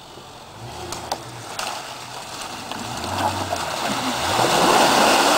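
Jeep Cherokee engine revving as the truck drives into mud and water, with splashing and rushing that grow steadily louder toward the end.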